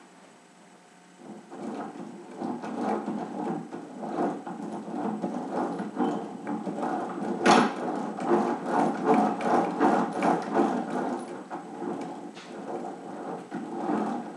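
A homemade one-way gearbox clattering and clicking as its lever is rocked back and forth to drive a propeller in one direction. The rattle starts about a second in and goes on unevenly, with one sharp click about halfway through.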